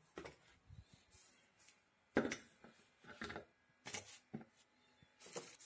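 A plastic funnel being handled and set into the glass neck of a demijohn: a few scattered light knocks and rubs, the loudest about two seconds in.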